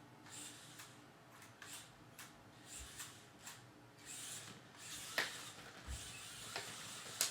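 Air Hogs Super Soft Stunt Shot remote-control car driving on the floor: a faint whirring from its small electric drive, with irregular soft knocks and scuffs as its foam wheels and body bump and tumble.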